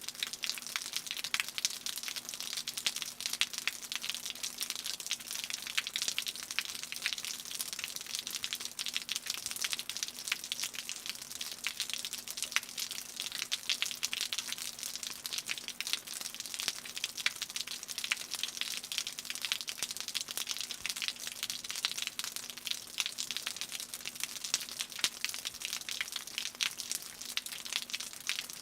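Rain dripping and pattering off a roof: a dense, steady spatter of many small drops, with a faint low hum underneath.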